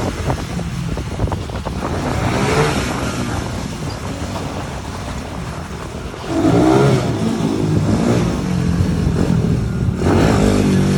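Small motorcycle engines revving during a race. The pitch climbs about two seconds in and again about six seconds in, when it gets louder.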